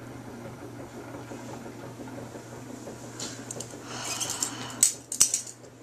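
A steady low hum, with rustling and light clattering from about three seconds in and two sharp clicks near the end.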